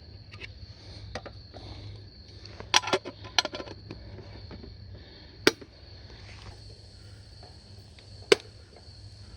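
A handful of sharp clicks and knocks from camp cooking at a wood fire: a quick cluster about a third of the way in, then single sharp ones about halfway and near the end, over a steady high-pitched background tone.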